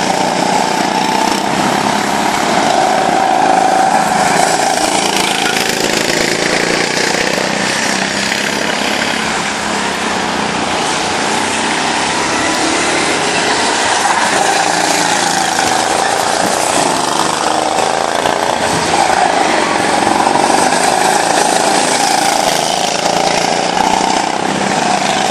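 Several go-kart engines buzzing around the track, their pitch rising and falling as the karts speed up and slow down.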